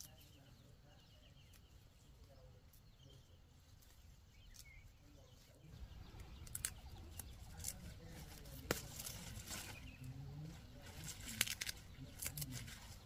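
Leafy greens being picked by hand: crisp snaps of stems breaking and leaves rustling, starting about six seconds in after a quiet stretch.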